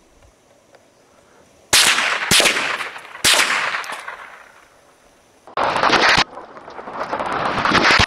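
Marlin Model 60 semi-automatic .22LR rifle firing three shots, a little under a second apart, each trailing off in a long echo. After them comes a longer loud stretch of even noise lasting a couple of seconds.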